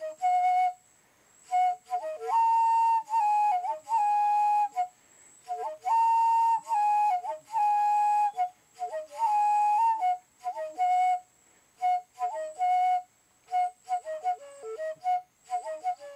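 Background music: a solo flute melody. It opens with quick short notes around one pitch, moves to long held higher notes with small steps about two seconds in, and returns to quick short notes from about ten seconds.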